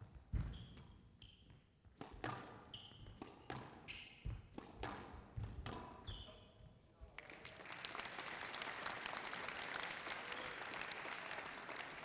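Squash rally: sharp knocks of the ball off rackets and the court walls, mixed with short, high squeaks of shoes on the court floor. About seven seconds in the rally ends and the crowd applauds.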